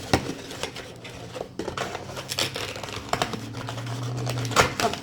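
Paperboard gift box lid being folded and its flaps tucked in by hand: irregular crinkling and creasing with sharp snaps and taps. The loudest snaps come just after the start and again near the end.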